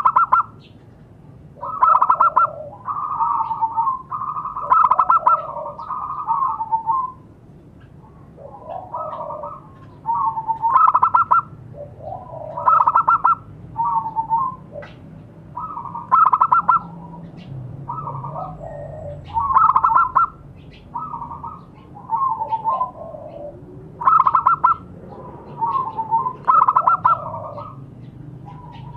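Zebra dove (perkutut) cooing: a series of short, rapidly pulsed, trilling coo phrases, about one every one and a half to two seconds, with several running together a couple of seconds in.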